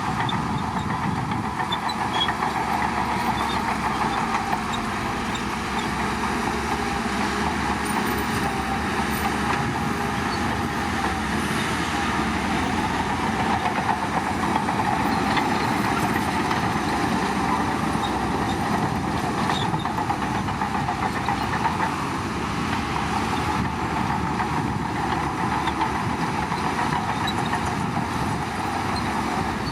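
Shantui crawler bulldozer working, its diesel engine running steadily.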